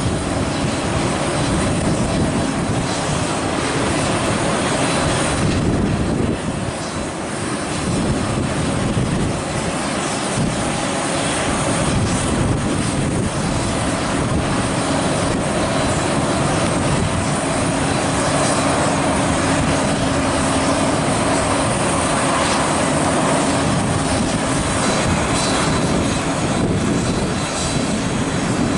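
Steady aircraft engine noise on an airport apron: a continuous drone with a thin high tone running through it.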